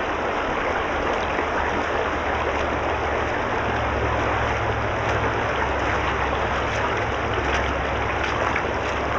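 Shallow rocky creek rushing steadily over stones, with faint splashes of a person wading through the current.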